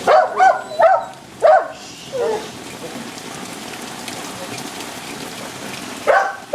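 Dog barking, five barks in quick succession over the first two seconds and one more near the end, over steady rain.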